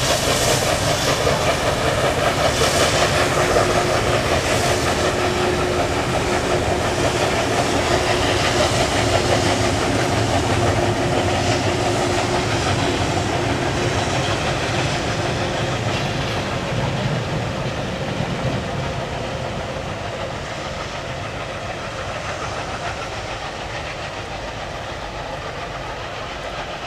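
Steam-hauled passenger train passing close by, its wheels clattering over the rails, the sound fading steadily as the train moves away.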